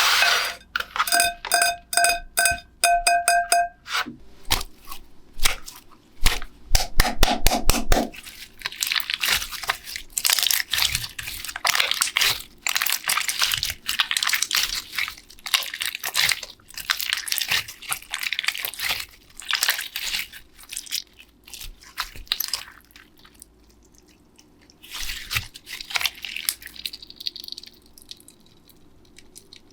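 Crinkling and crunching handling noises as slime ingredients are worked by hand, opening with a short chime repeated several times.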